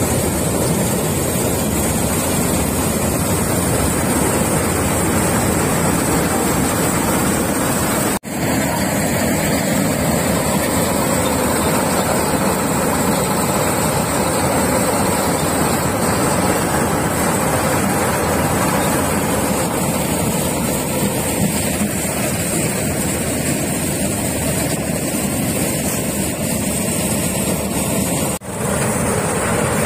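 Malkit combine harvester threshing dry okra plants: its engine and threshing drum run with a loud, steady rush. The sound drops out briefly twice, about 8 seconds in and near the end.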